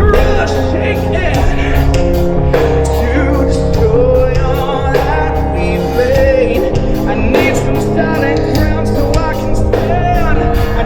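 Live rock band playing loudly: rhythm and lead guitars over a drum kit, with sung vocals.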